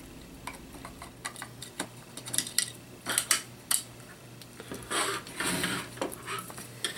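Scattered light clicks and taps of a screwdriver and hard plastic parts as the pistol grip of a DBoys M4 CQBR SD airsoft rifle is unscrewed and worked off the lower receiver, with a short scraping rustle about five seconds in.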